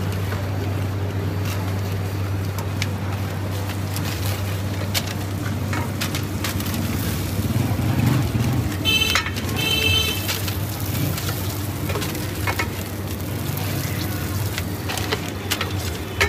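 Food frying on a large flat street-stall griddle (tawa), with a steady sizzle over a constant low hum. A brief high-pitched tone sounds twice about nine seconds in.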